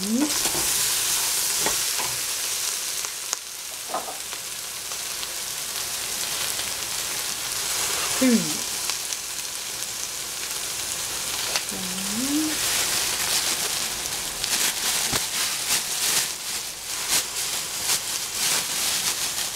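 Eggplant pieces sizzling as they fry in a stainless steel pot. In the last few seconds a wooden spatula stirs them, with rapid clicks and scrapes against the pot.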